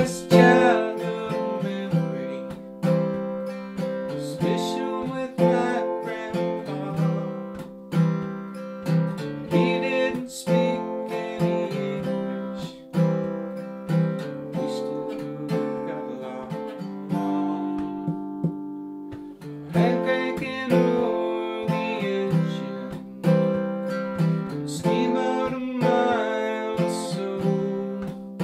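Steel-string acoustic guitar strummed in a steady rhythm, chords ringing between the strokes.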